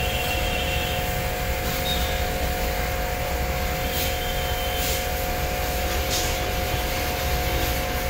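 Steady machine hum with two constant tones over a low rumble, with faint brief swishes of a cloth wiping the wet car body now and then.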